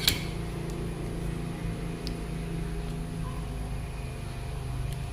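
A steady low mechanical hum, with a sharp click at the very start and a couple of faint ticks later.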